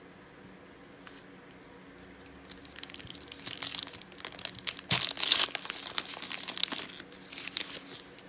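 A trading-card pack's foil wrapper crinkling and tearing open by hand, starting about two and a half seconds in and loudest around five seconds in.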